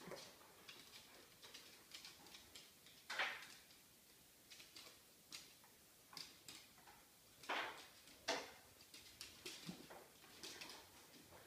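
Dog claws clicking and tapping on a hardwood floor as two West Highland White Terriers creep and step about, with a few louder scuffs about three seconds in and twice near the end.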